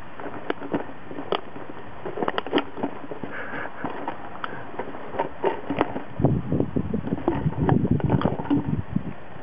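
Rottweiler puppy pawing and mouthing an empty plastic bottle on grass: a run of sharp, irregular plastic crackles and clicks. From about six seconds in, a low rumbling noise on the microphone joins.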